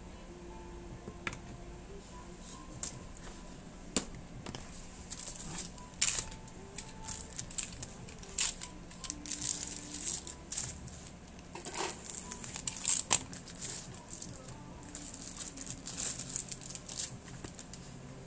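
Crinkling and crackling of a table tennis rubber's plastic packaging being handled and opened, in quick irregular bursts after a few scattered light clicks at first.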